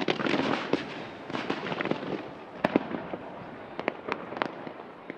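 Aerial fireworks: dense crackling in two waves over the first two seconds, then two sharp bangs close together near the middle, then scattered pops and crackles thinning out toward the end.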